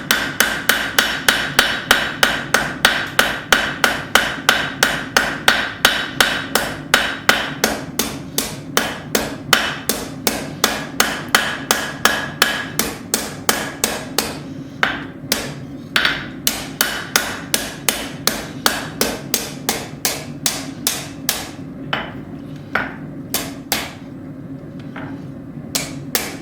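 Blacksmith's hand hammer striking hot steel on an anvil: a steady run of blows, about three a second, with the anvil ringing between strikes. About halfway through, the blows become slower, more uneven and a little softer.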